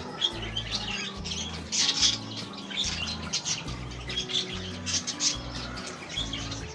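Background music with a repeating low bass line, and birds chirping over it in short, frequent high calls.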